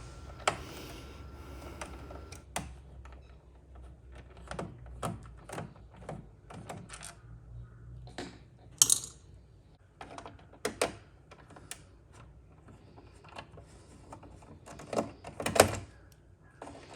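Irregular clicks, taps and knocks of a PlayStation 4's internal parts being handled and pried during power-supply removal, with a few louder knocks spread through.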